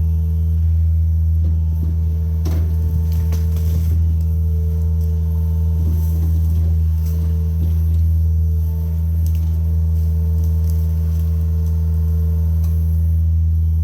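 John Deere mini excavator's diesel engine running at a steady speed, a loud, even low drone, with a few faint light knocks.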